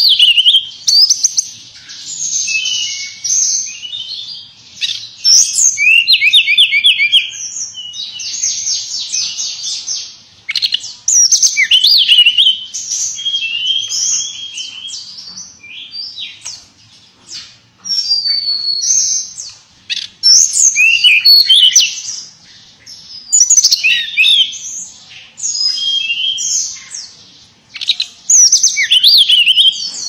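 Caged tledekan pring, a blue flycatcher, in full loud song: fast trills and sharp whistled notes that rise and fall, in phrases of one to two seconds with short pauses between them.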